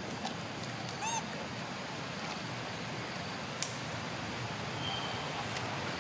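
Steady outdoor background noise with one short, high, rising-and-falling animal squeak about a second in and a single sharp click later.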